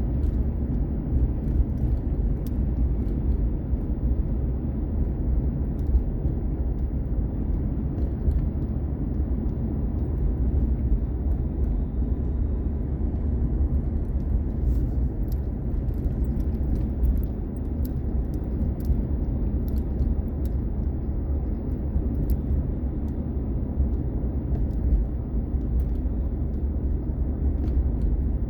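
Steady engine and road rumble heard from inside a moving vehicle.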